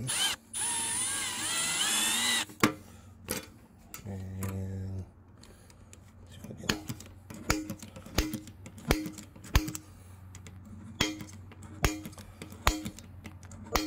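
Drill spinning a bit into a steel rivet of a Shimano 10-speed cassette for about two seconds, its whine wavering in pitch, to drill out the rivets holding the cogs to the spider. A short, lower steady hum follows about four seconds in. From about halfway on comes a run of sharp metallic clicks, roughly one every two-thirds of a second, as a center punch strikes the rivet pin, the cassette ringing briefly with each.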